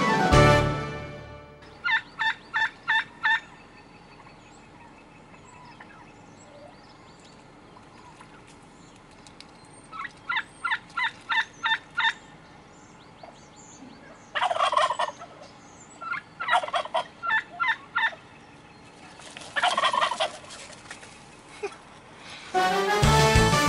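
A male turkey gobbling again and again: about five quick rattling calls, each a second or two long, spaced a few seconds apart. Background music fades out at the start and comes back near the end.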